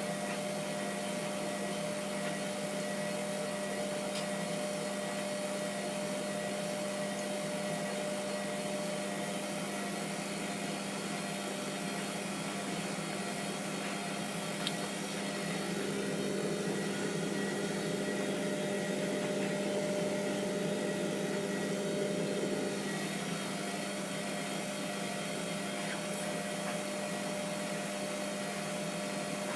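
Hotpoint WMF720P washing machine running with a steady motor-and-pump hum while heavy suds remain in the drum, growing a little louder for several seconds past the middle before settling back.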